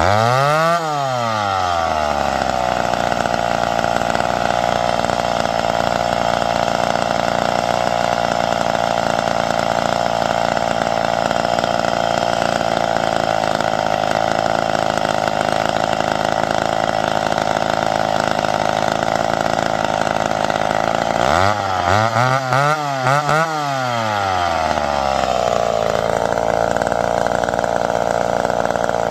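McCulloch 1010 two-stroke chainsaw with a .325 full-chisel chain, running at full throttle as it cuts log rounds, holding one steady high note for long stretches. At the start and again about 21 seconds in, the revs drop and climb quickly several times, then settle back to a steady full-throttle note.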